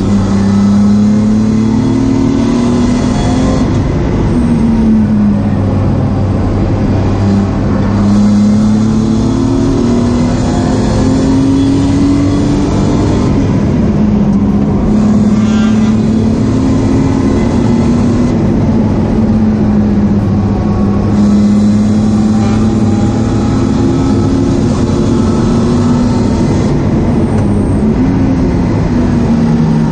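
BMW E36 328i's 2.8-litre straight-six engine at high revs, heard from inside the stripped cabin, its pitch climbing under acceleration and dropping back several times.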